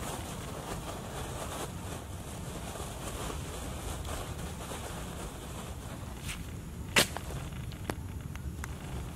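Steady low rumble of wind on the microphone, with one sharp snap about seven seconds in, the loudest sound, and a few fainter clicks around it.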